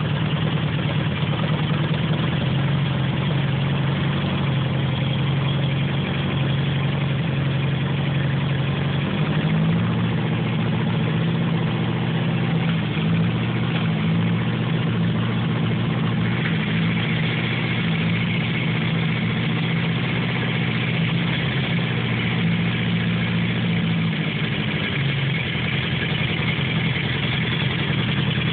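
Four-cylinder motorcycle engine idling steadily while its carburetors are synchronised on vacuum gauges. The idle rises a little about nine seconds in and settles back near the end, as the carburetors are adjusted.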